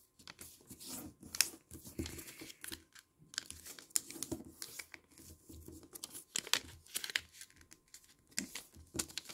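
Origami paper rustling and crinkling as hands fold it and press the creases flat, in soft, irregular crackles and taps.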